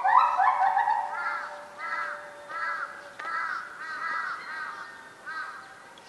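A bird calling over and over: a dozen or so short arched calls, loudest at the start and fading toward the end.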